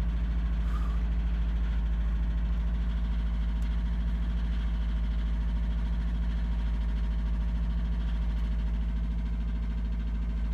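2002 Subaru WRX's built EJ25 flat-four with forged internals idling steadily just after a cold start, with a rapid, even knock of piston slap that is loud while the engine is cold.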